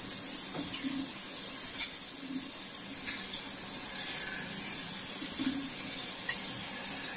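Sliced onions deep-frying in hot oil in a steel kadai, a steady sizzle, with a few light clinks of a wire-mesh skimmer against the pan as the browned onions are scooped out.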